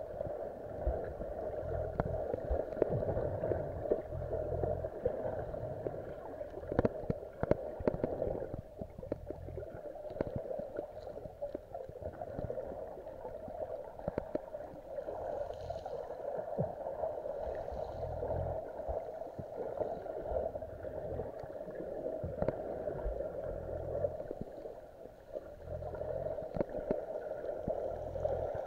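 Underwater sound of shallow sea water moving over a pebble seabed, heard with the muffled quality of a submerged camera: a steady rushing hiss with scattered sharp clicks and low surges that swell and fade several times.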